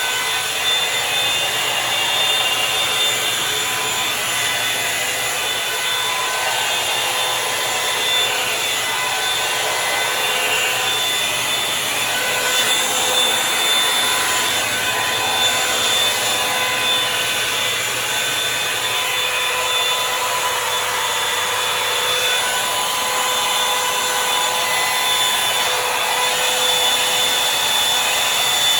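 Revlon One Step Volumizer hot-air brush dryer running steadily: a rush of blown air over a steady motor whine.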